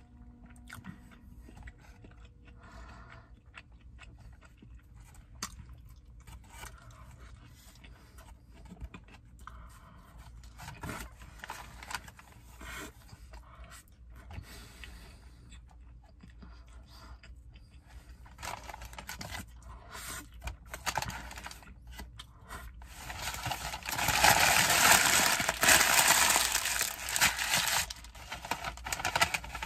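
Eating a gyro sandwich: chewing, with scattered crinkles of its paper wrapper, then a few seconds of loud paper rustling near the end.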